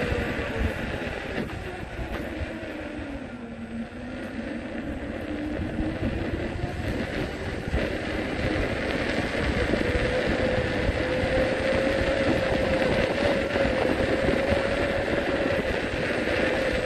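A small vehicle's motor whining under wind and road noise while riding. About three to four seconds in, the whine drops in pitch and the sound dips, as if slowing, then it climbs back and holds steady.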